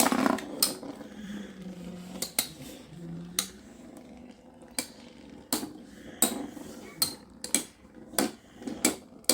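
Metal Fight Beyblade tops Lightning L-Drago and Fang Leone spinning in a stadium, their metal wheels colliding in a run of sharp, irregular clacks, often about half a second apart.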